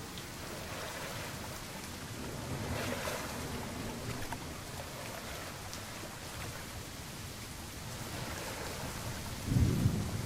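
Sea waves washing steadily with wind, swelling about three seconds in, and a sudden deep boom near the end.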